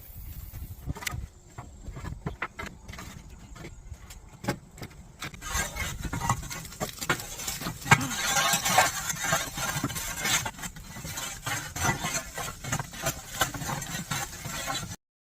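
Wood fire burning in the firebox of a traditional wood-fired kiln: a steady rush of flame with many sharp crackles and pops. The rush grows much louder about five seconds in, and the sound stops abruptly near the end.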